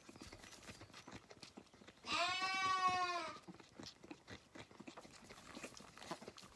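A Zwartbles lamb bleats once about two seconds in, a long quavering call, over short clicks and rustles of a lamb sucking at a feeding bottle in straw.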